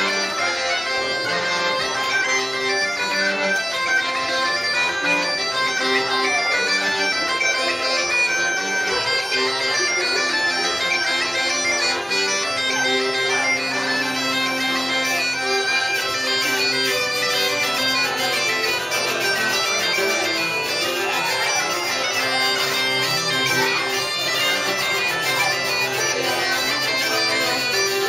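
Live band music: a reedy, bagpipe-like melody playing over a steady drone.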